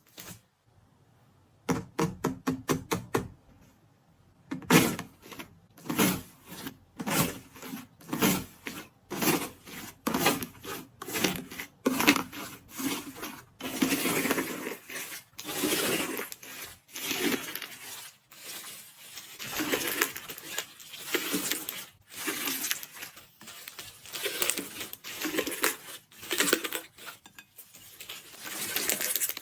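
Crunchy 'iceberg' fluffy slime being pressed and squeezed by hand: crisp crackling and popping in quick irregular bursts, with a fast run of clicks about two seconds in.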